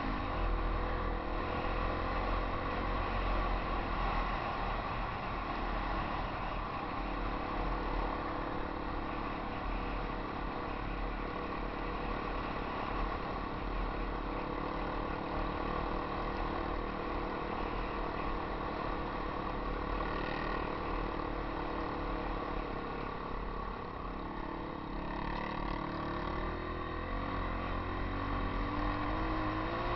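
Yamaha XT 250 single-cylinder four-stroke trail bike engine running under way, heard from the rider's helmet. The engine pitch rises and falls with the throttle near the start and again near the end.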